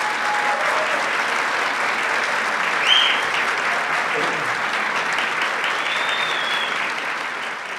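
Concert hall audience applauding steadily after an orchestral piece ends, with a couple of short high whistles, about three seconds in and again near six seconds.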